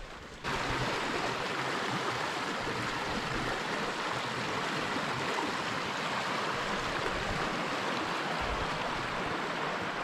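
Rushing stream water, a steady even hiss that starts suddenly about half a second in.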